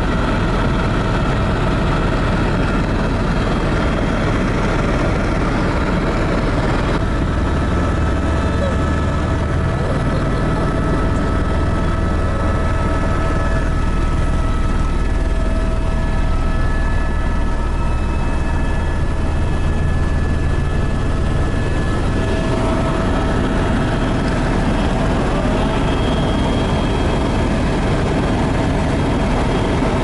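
Helicopter engine and rotor noise heard from inside the cabin in flight: a steady drone with a low rumble and a few steady whining tones.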